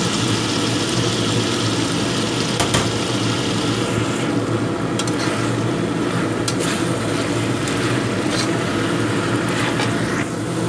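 Chicken in spice paste sizzling in a wok over a steady low hum, as a metal spatula stirs in basil leaves and now and then clicks against the pan.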